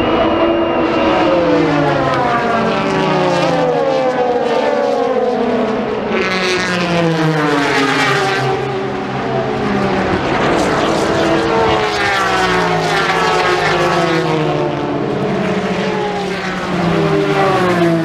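Endurance racing cars passing one after another at full race pace, their loud engine notes overlapping and each falling in pitch as the car goes by.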